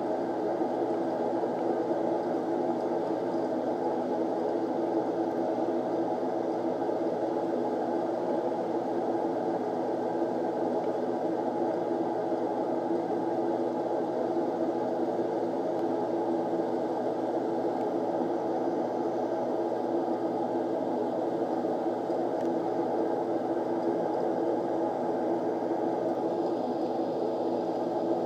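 Steady whirring hum that holds even and unchanging throughout, with no distinct events in it.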